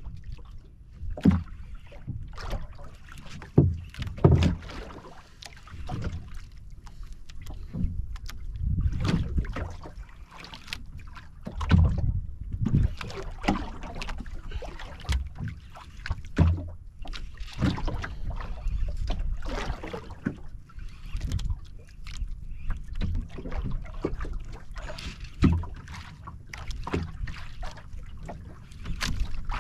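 Small outrigger boat at sea: wind rumbling on the microphone and water slapping against the wooden hull, with irregular sharp knocks against the boat.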